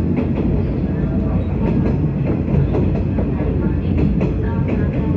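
Running noise of a 381 series electric train heard from inside the car as it moves: a steady low rumble with light clicks from the wheels over the rails.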